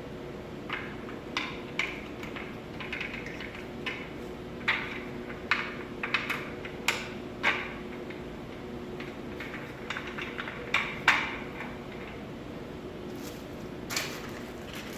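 Office chair parts being handled and fitted by hand: a dozen or so irregular, sharp plastic clicks and knocks, over a steady low hum.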